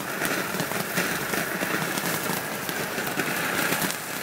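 Ground fountain firework spraying sparks: a steady hiss with fine crackling throughout.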